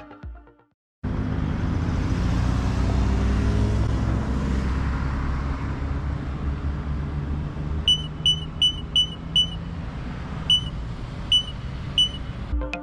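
Street traffic: a car passing with a low road rumble that swells and then fades. From the middle on, a run of short, high beeps repeats about three times a second, followed by a few more spaced out.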